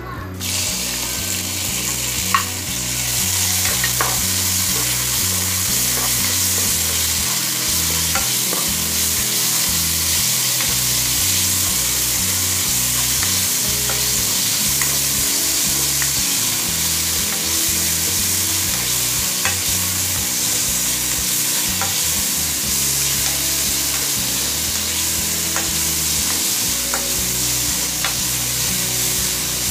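Raw chicken pieces sizzling in a hot nonstick pan, the sizzle starting about half a second in as they hit the oil and frying steadily on, with occasional clicks of a spatula stirring them against the pan.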